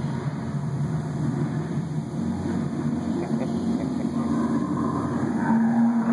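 Low rumbling sound effects of a dark dinosaur ride, with a steady low held tone that comes in about two seconds in and grows louder near the end.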